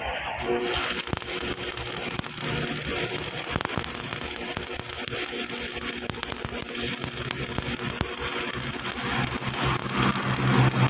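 Electric arc welding on a steel forklift hydraulic cylinder, patching a leak: the arc strikes about half a second in and then crackles and sizzles steadily, with a faint low hum underneath.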